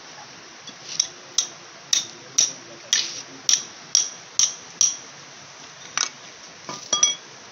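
A hammer striking a wrench on the flywheel nut of a Honda EP1000 generator to break the nut loose: nine sharp metallic ringing blows, about two a second. One more blow comes about a second later, then a few lighter ringing clinks of metal near the end.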